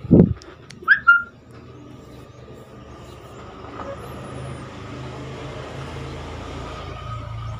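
A short thud as the 1 kg test weight is set on the digital platform scale's steel platform, then a brief high chirp about a second in. After that a low engine rumble, like a vehicle running, builds slowly and steadily louder.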